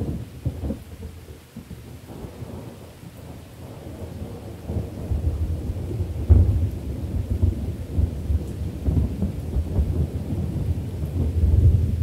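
Thunderstorm: steady rain under rolling thunder. A sudden clap comes at the start, then deep rumbles build from about five seconds in. They are loudest a little after six seconds and swell again near the end.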